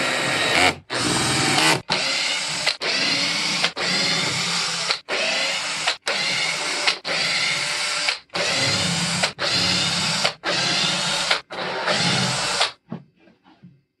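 Cordless drill-driver running in about a dozen short bursts of about a second each, broken by brief gaps, as it drives and removes screws in a wooden housing; it stops near the end.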